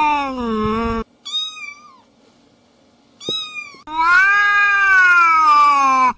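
A cat yowling in long, drawn-out wails that slide down in pitch. The first wail breaks off about a second in, two shorter, higher cries follow, and a second long wail runs from about four seconds in.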